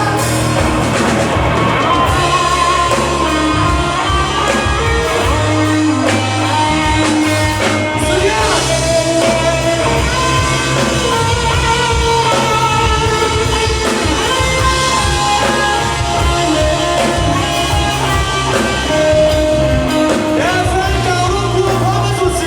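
Rock song with a lead singer and band, playing steadily.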